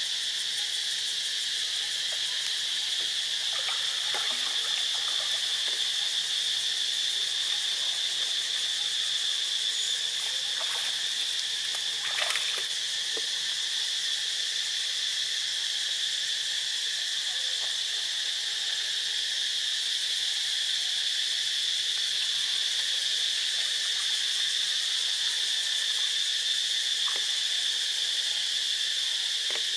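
Steady, high-pitched drone of an insect chorus that holds unchanged throughout. A few faint, brief knocks or splashes sit on top of it, the clearest about twelve seconds in.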